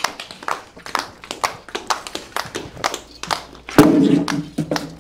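Tap shoes striking a hard stage floor in a quick, uneven run of taps, several a second. A voice calls out about four seconds in.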